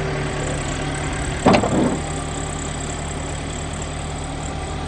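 New Holland B75B backhoe loader's turbo diesel engine idling steadily, with a single sharp knock about a second and a half in.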